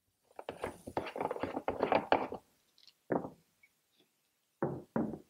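A bung cap wrench turning a bung cap out of an IBC tote's 6-inch cap: about two seconds of quick clicks and knocks. Three separate knocks follow as the cap and wrench are laid on the tank top.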